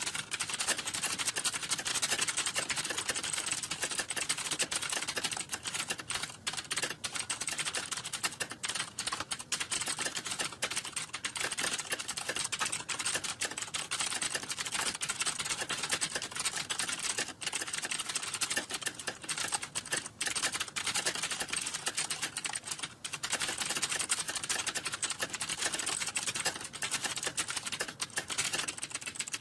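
Fast, continuous typing on a computer keyboard: a dense stream of key clicks with only a few brief pauses.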